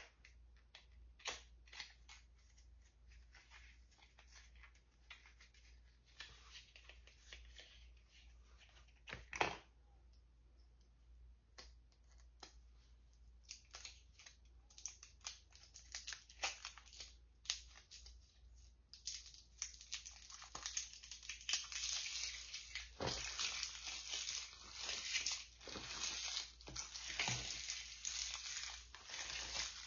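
Plastic cosmetic packaging being handled and opened: scattered small clicks and rustles with one louder click about a third of the way in. Then, from about two-thirds in, a denser run of crinkling and tearing of the wrapping.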